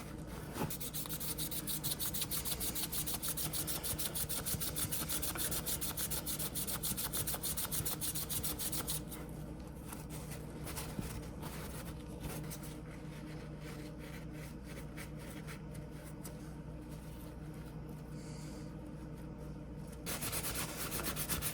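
Rapid back-and-forth abrasive rubbing on a rusty carbon-steel pocket-knife blade as rust is scrubbed off. The strokes are quick and even at first, turn fainter and more irregular about nine seconds in, and grow stronger again near the end.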